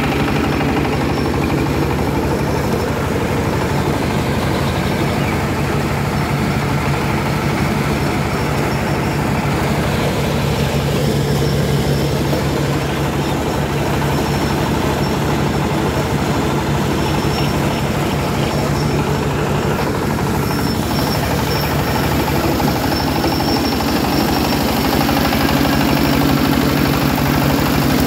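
SJ12 engine-driven corn sheller machine running steadily, a continuous low mechanical hum and rattle with small shifts in tone.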